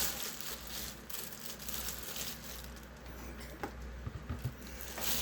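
Plastic packaging crinkling and rustling irregularly as the hot air rework station is unwrapped, with a few small knocks of the unit being handled.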